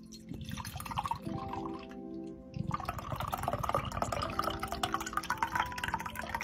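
Canned Thai-flavour bubble milk tea with tapioca pearls poured from the can into a glass mug, a splashing stream of liquid. It eases off briefly, then grows louder and busier about two and a half seconds in as the mug fills.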